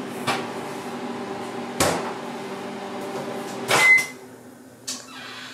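A steady, low appliance hum with a few knocks and clicks. The loudest knock comes about four seconds in, with a brief high beep, and the hum is quieter after it.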